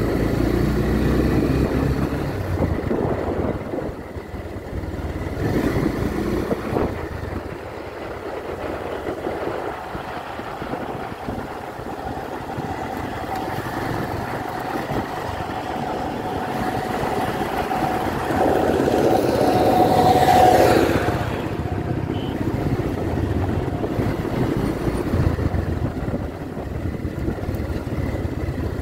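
Motorcycle engine running under way on an unpaved dirt road, heard from the rider's own bike, its note rising and falling with the throttle and at its loudest about twenty seconds in.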